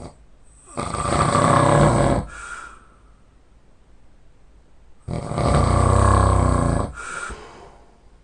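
A person snoring loudly: two long, rasping snores about four seconds apart, each followed by a brief, softer breath.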